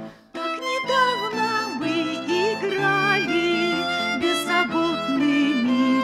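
Solo violin playing a melody with vibrato, starting again after a brief break about a third of a second in.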